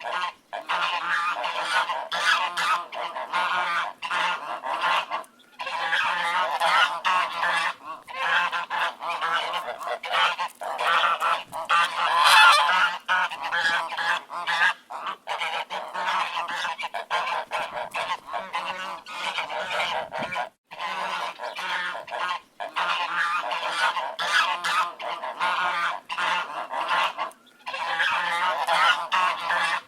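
A flock of ducks quacking continuously, with many calls overlapping and a few brief breaks.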